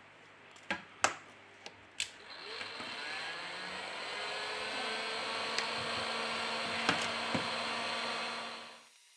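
A few sharp plastic clicks as the Nokia 3.1's back cover clips are pried loose. Then a steady whirring noise, like a small motor, runs for about six seconds and cuts off near the end.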